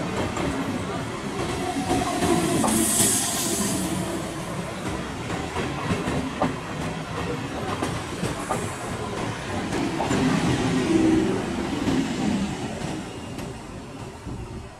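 Electric multiple unit suburban train passing close by: a steady rumble of wheels on rails with the clickety-clack of wheels over rail joints, and a brief high hiss about three seconds in. The sound dies down near the end.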